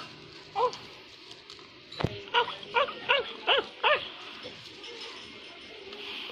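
Short, pitched yelping calls. One comes about half a second in; then, right after a sharp knock, five come in quick succession, each rising and falling in pitch.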